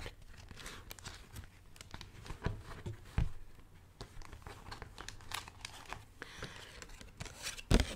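Close-miked crinkling and rustling of a Bee's Wrap beeswax-wrap package being handled, made of scattered small crackles, with a soft knock about three seconds in and a louder one near the end.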